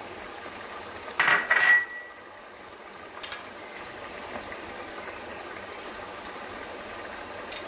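Beef, onion and garlic frying in oil in a pot, a steady low sizzle. About a second in, a metal spoon scrapes and clinks against the pot with a short ring, and a lighter click follows about two seconds later.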